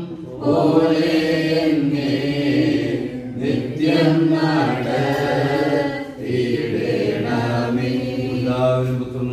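Voices chanting a Christian liturgical prayer together in sustained, slowly moving phrases of about three seconds each, with brief breaks between them.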